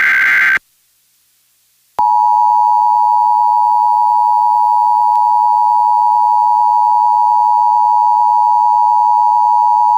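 Emergency alert broadcast test signal. It begins with the end of a buzzy digital data burst, the alert header code. After about a second and a half of silence comes a loud, steady warning alarm tone of about 1 kHz, held unchanged for about eight seconds.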